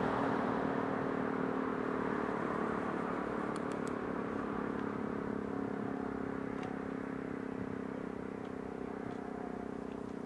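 E57 electric motor siren coasting down after sounding the fire alarm: a steady tone that slowly grows quieter as the rotor spins down, the long run-down of a siren in good order.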